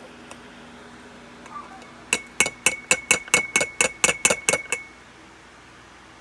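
A stainless steel bowl tapped about a dozen times in quick succession against the rim of a glass jar, about four or five knocks a second, with a ringing note, knocking ground spice mix out of the bowl into the jar.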